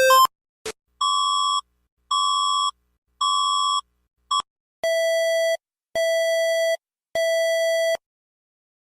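Electronic emergency-alert beeps. An alternating two-pitch alarm tone cuts off just after the start. Then come three higher beeps about a second apart, a short blip, and three slightly longer beeps at a lower pitch, also about a second apart.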